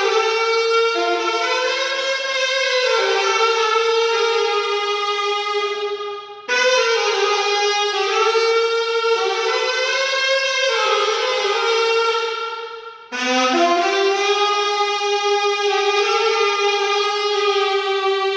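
Alto saxophone playing slow, long-held notes in three phrases, about six seconds each, with a brief break between them. Several notes sound at once and blend into one another.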